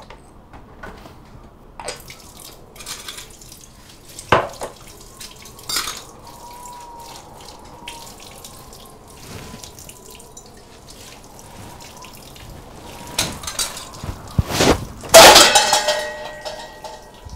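Kitchen tap running into the sink during washing-up, with dripping water and light clinks of dishes. Near the end comes a loud clatter that rings briefly.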